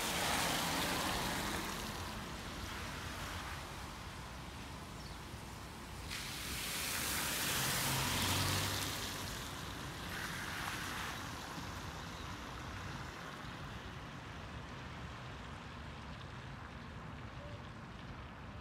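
Cars passing on a wet road, tyres hissing on the water: one right at the start and another swelling up and fading from about six to nine seconds in, with a low engine hum at its loudest. A steady rush of noise carries on in between.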